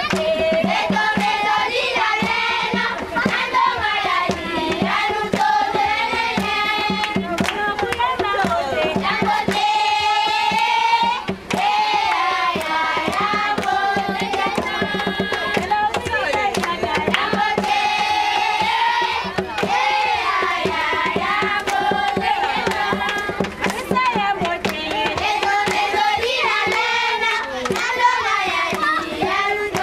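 A crowd of children and women singing together in chorus, with hand-clapping keeping time throughout.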